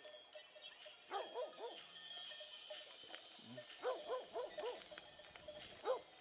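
Shepherd dogs barking in quick runs of several barks: a run about a second in, another near four seconds, and a single bark near the end.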